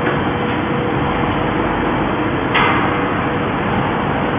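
Truck-mounted crane's engine running steadily under a steady whine, as it powers the hydraulics holding a heavy load. A brief sharp noise comes about two and a half seconds in.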